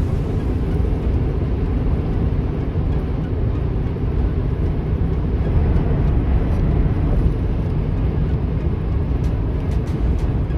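A car driving along the road: a steady low rumble of road and engine noise.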